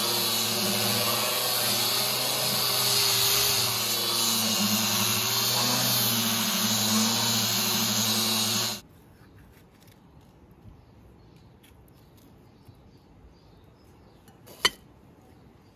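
Angle grinder fitted with a sanding disc, running and sanding the top of a wooden box: a steady motor whine with a hissing rasp. It cuts off suddenly about nine seconds in, leaving quiet with a single sharp click near the end.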